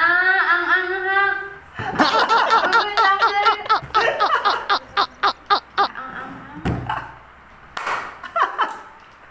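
A man and a woman laughing hard. A long, high, wavering laugh comes first, then rapid bursts of laughter at about four a second, then a single knock and quieter sound near the end.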